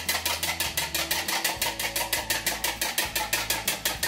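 Fork beating eggs in a glass measuring cup: a fast, even run of clicking strokes, about seven a second.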